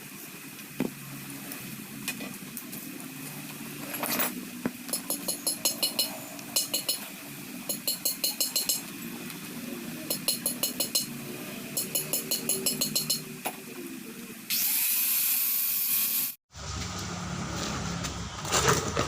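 Ratchet wrench clicking in short runs of quick ticks, about eight to a run, repeated several times as bolts are worked. Near the end comes a loud hiss lasting about two seconds, then after a sudden cut a steady low hum.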